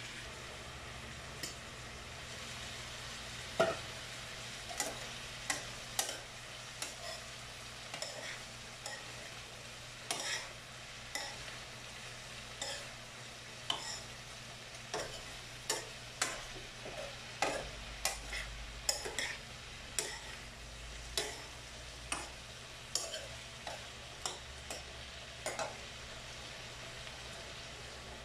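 Sliced bitter gourd stir-frying in a frying pan: a faint steady sizzle, with a spatula scraping and knocking against the pan in short, irregular clicks throughout.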